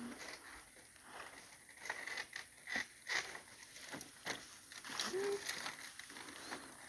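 Dry palm fronds and sticks rustling and crackling with irregular snaps as they are handled and shifted, with a brief squeak about five seconds in.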